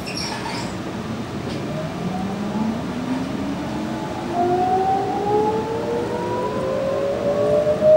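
Sydney Trains Millennium (M-set) electric train's Alstom IGBT-VVVF traction inverter and motors whining as the train pulls away. From about two seconds in, several tones climb steadily in pitch together and grow louder, heard inside the carriage.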